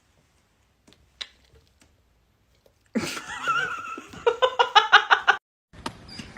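A person laughing: a voiced start followed by a quick run of giggling bursts, about six a second, which cuts off abruptly.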